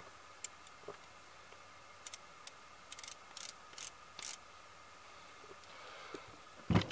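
A string of small, sharp metallic clicks from handling a Pietta 1851 Navy cap-and-ball revolver, bunched in the middle. A single heavy thump near the end is the loudest sound.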